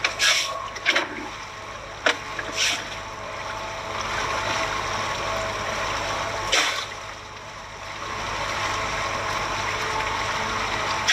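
Water rushing and splashing, steady and swelling twice, with a few short splashes or knocks.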